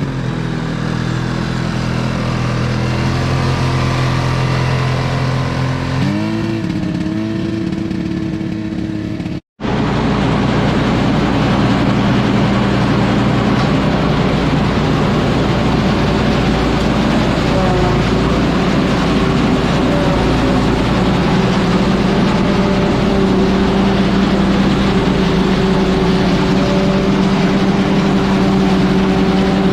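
John Deere 4020 tractor engine running, its pitch shifting up and down a couple of times in the first few seconds. After a cut about a third of the way in, it runs steadily under load with more rumble and noise.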